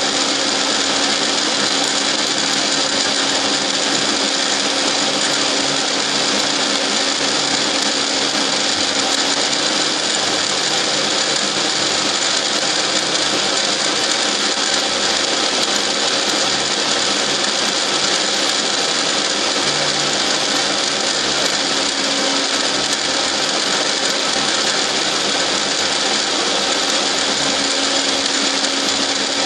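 Milling machine running steadily while cutting helical teeth under hand feed through a dividing head: a steady low hum with a thin high whine above it.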